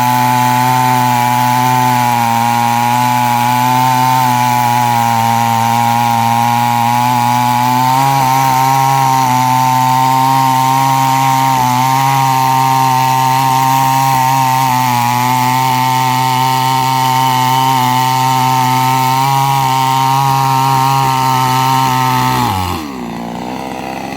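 Chainsaw running at steady high revs, cutting wood. Near the end its pitch drops sharply and it settles down to idle.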